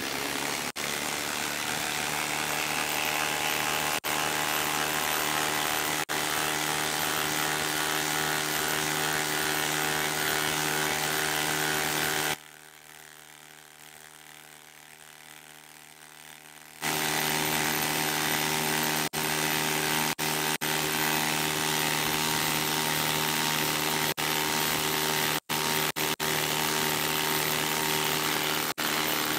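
Milwaukee M18 2853-20 impact driver, fitted with a half-inch anvil, hammering continuously as it drives a 10-inch lag screw into a wood round, a hard-going drive under heavy load. The hammering stops for about four seconds about twelve seconds in, then resumes.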